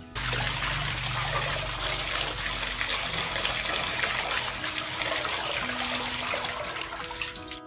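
Tap water running hard onto noodles in a perforated metal colander, pouring through and splashing into a metal basin of water below. The rush starts suddenly.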